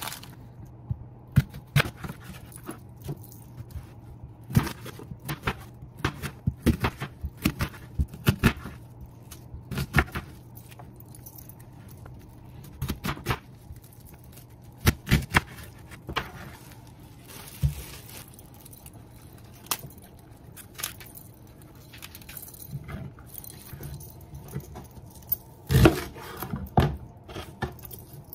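Kitchen knife rough-chopping onion and celery on a cutting board: irregular sharp knocks of the blade striking the board, in bursts, loudest near the end.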